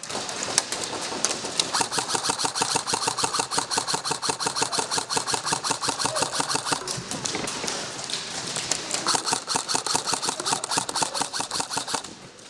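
Airsoft electric rifles firing on full auto: a fast, even rattle of shots that keeps going and then cuts off suddenly near the end.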